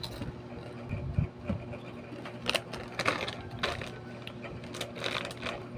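Plastic snack wrappers crinkling and crackling in irregular bursts as packets are handled, over a steady low hum.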